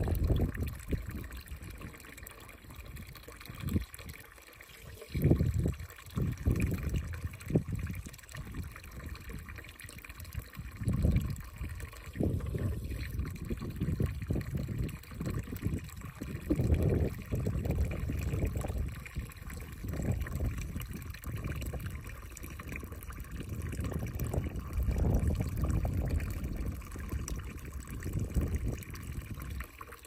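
Water trickling steadily from a spring-fed fountain. Over it come irregular low bumps and rustles close to the microphone.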